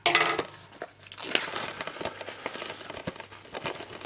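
Blu-ray packaging being handled: crinkling and rustling with many small clicks. There is a loud rustle right at the start, and a denser crackling from about a second in.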